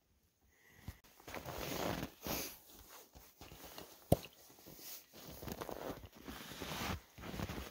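Rustling and crunching of gloves, winter clothing and feet in snow, with one sharp pop about four seconds in as the cork stopper is pulled from a bourbon bottle.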